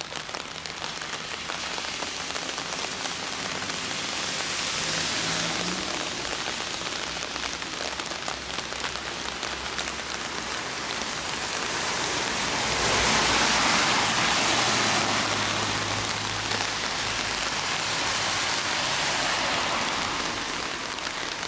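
Steady rain falling on pavement and parked motorcycles. The hiss swells twice, about five seconds in and more strongly around thirteen seconds, as cars pass on the wet road with a faint engine hum.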